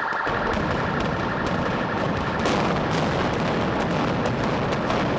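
Demolition explosive charges firing in a rapid sequence: a dense crackle of many sharp blasts over a low rumble, setting in abruptly just after the start. A car alarm's pulsing tone carries on underneath for the first couple of seconds.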